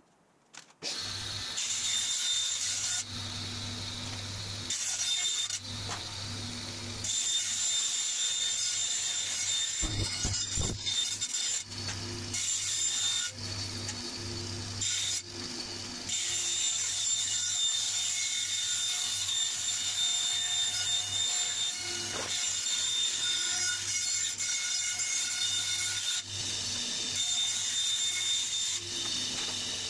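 Band saw running, its blade cutting thin aluminum sheet, with a steady motor hum and a high whine. The sound jumps abruptly every few seconds, with a low thump about ten seconds in.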